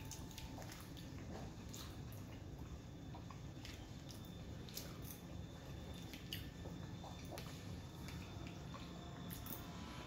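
Plastic fork scraping and clicking against a clear plastic plate while scooping up mac and cheese, a few sharp clicks scattered through, over a low steady hum.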